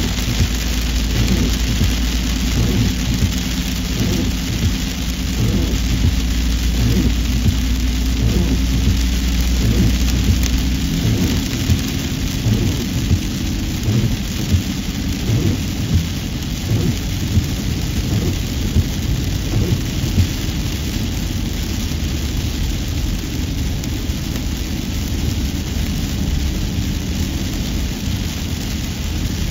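Road and engine noise heard inside a moving car: a steady low rumble and hiss with a faint drone and many short knocks. The deepest rumble drops away about a third of the way through.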